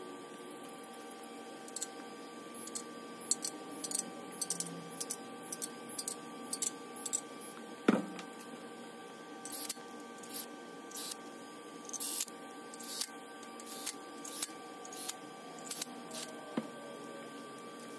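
Light metallic clicks and taps from hand tools working on an LS engine block's main bearing caps, over a steady faint hum. A sharp knock about eight seconds in is the loudest sound, and in the second half the clicks come roughly once a second.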